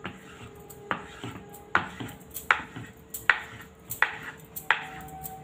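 Knife cutting rolled-out dough into long noodle strips on a wooden rolling board, the blade knocking on the board with each cut, about six cuts roughly three-quarters of a second apart.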